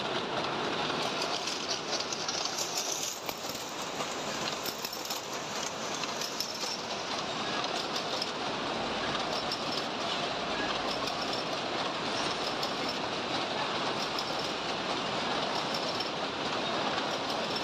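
Matchbox-filling machine running with a dense, steady mechanical clatter.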